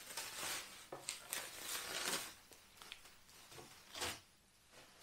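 Plastic wrapping crinkling and rustling as it is pulled off a part, in a run of bursts over the first two seconds, then softer, with a short louder rustle about four seconds in.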